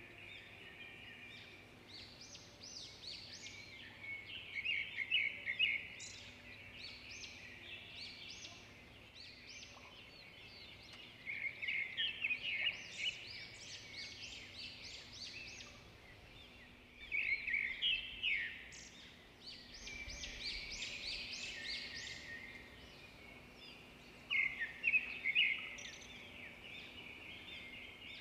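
Birds chirping, in bursts of quick high chirps that come every few seconds.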